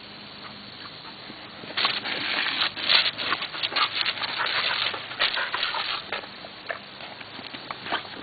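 Garden hose spray splashing in dense, irregular bursts for a few seconds, then more sparsely, as a Border Collie snaps at the water.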